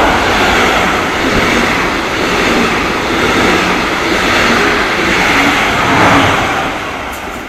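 An Israel Railways passenger train running through the station at speed without stopping: a loud, steady rush of wheel and coach noise that tails off over the last second or so.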